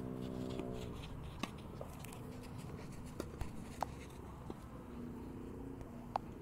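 Tennis ball being struck: a few sharp pops spaced one to two seconds apart, the last near the end the loudest.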